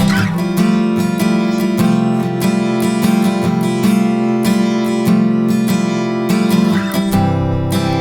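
Instrumental music: an acoustic guitar strumming chords in a steady rhythm, changing chord about seven seconds in.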